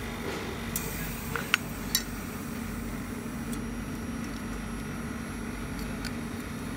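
A few light metallic clinks as aluminium sheet pieces are handled and set down, three or four within the first two seconds, over a steady low hum.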